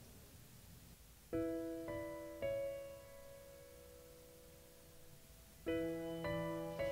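Slow piano music: a group of three chords struck about half a second apart, each left to ring and fade, then another group of three near the end, after a quiet opening second.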